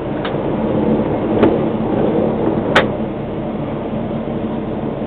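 Steady hum and rumble heard inside a Tatra K2 tram, with road traffic crossing outside. Three sharp clicks cut through it, the loudest about three seconds in.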